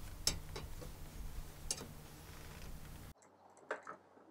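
Scattered light clicks and knocks of a heavy winch power cable being handled and fed past the bumper and grille, over a low steady hum. About three seconds in the hum cuts off abruptly and a couple of fainter clicks follow.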